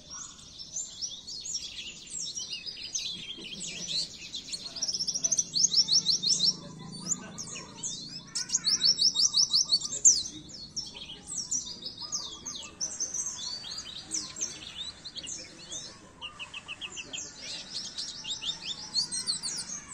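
White-eye (pleci) singing a long, fast, high chattering song of rapid trills and chirps, with several runs of quickly repeated notes; a masteran recording used to train captive white-eyes to sing.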